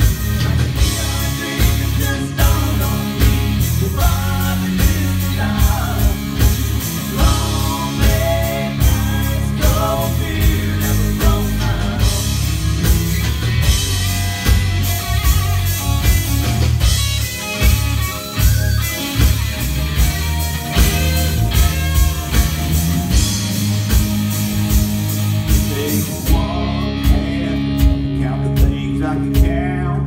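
Live band playing a country-rock song: electric guitar, bass guitar and a Roland electronic drum kit keeping a steady beat, with a male lead vocal. The bright top end drops away near the end while the guitars and bass carry on.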